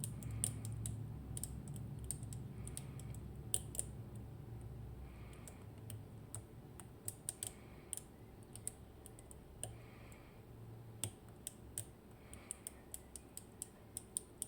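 Irregular light metallic clicks and ticks of a lock pick working the finger pins of an IKON SK6 Radienprofil Extra Code euro cylinder, over a low hum that fades about halfway through.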